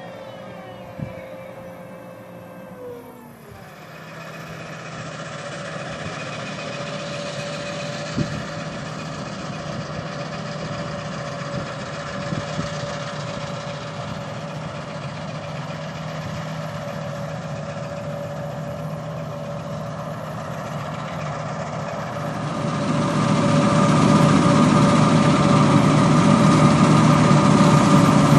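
A whine falls away over the first few seconds. Then a combine harvester's engine runs with a steady drone and hum, growing much louder about two-thirds of the way through as the machine comes closer.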